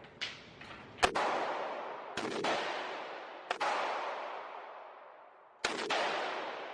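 Gunshots at a firing range: five single shots at irregular intervals, the first faint and the second the loudest, each followed by a long echoing tail.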